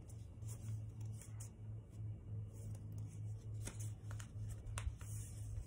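Concertina-folded sheet of printing paper being handled and folded back on itself: soft rustling of the pleats, with a few short, sharp crinkles near the end.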